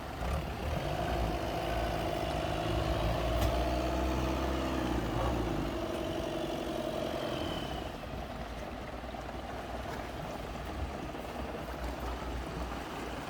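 A boat engine running steadily. Its sound drops away about eight seconds in, leaving a softer noisy background.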